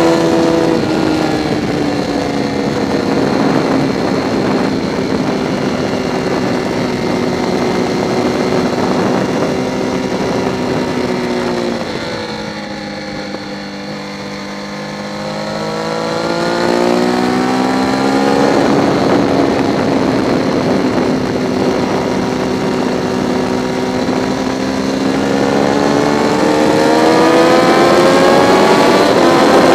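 Triumph Daytona 675's three-cylinder engine at track speed, with road and wind noise. Its pitch falls at the start, dips lower and quieter about twelve seconds in, then rises again as it accelerates, climbing once more near the end.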